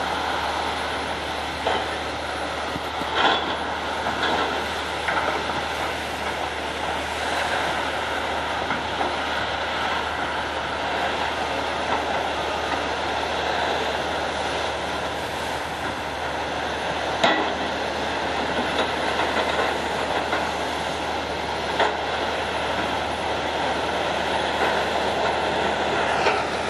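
Large Doosan hydraulic excavator working: steady engine and hydraulic noise, with a few sharp metallic knocks scattered through.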